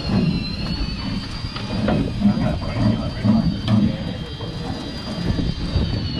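Electric deck fishing winch (Alvey Reefmaster) whining steadily as it hauls a line up from the bottom, over a low machinery rumble, with a few short knocks of fish being handled on the box lids.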